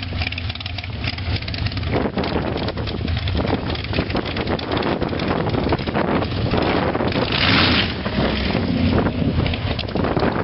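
A vehicle engine running steadily, with wind buffeting the microphone; the wind noise grows about two seconds in and peaks briefly past the seven-second mark.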